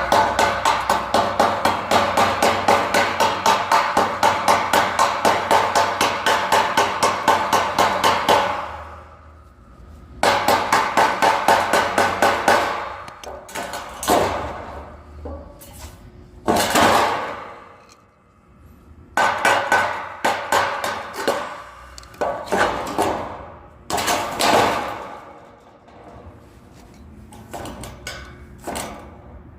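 Hammer striking steel in a fast, even series of ringing blows, about four or five a second for some eight seconds. After a pause comes a second run of a couple of seconds, then shorter scattered bursts of knocking.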